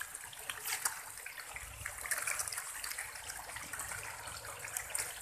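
A densely stocked pond of catfish churning and splashing at the surface as pellet feed is scattered over them: a steady wet splashing made of many small splashes and pops.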